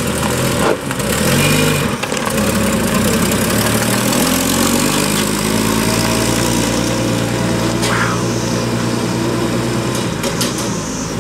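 1929 Graham-Paige Model 615's inline six-cylinder engine revving as the car pulls away, its pitch shifting and rising over the first few seconds, then running at a steady note.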